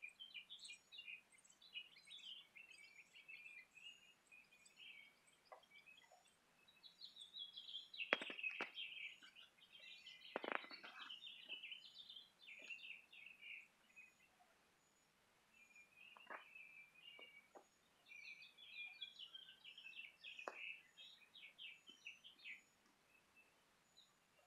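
Small birds chirping and twittering in quick runs of high notes, faint overall. A few sharp clicks, the loudest about eight and ten seconds in.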